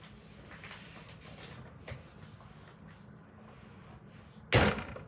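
Sheets of waste paper rustling as they are handled and sorted, with a small click near two seconds in. About four and a half seconds in comes a single loud thump.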